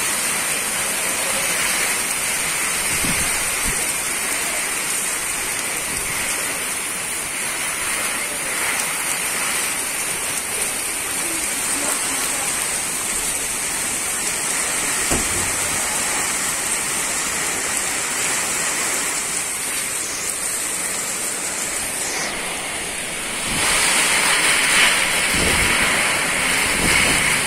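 Typhoon wind and heavy rain, a steady rushing hiss of rain with wind through the trees, growing a little louder near the end.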